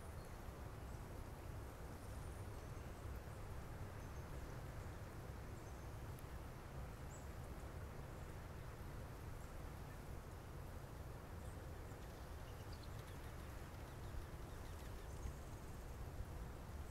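Faint outdoor winter ambience: a steady low rumble and hiss, with a few short, high chirps from small birds scattered through it.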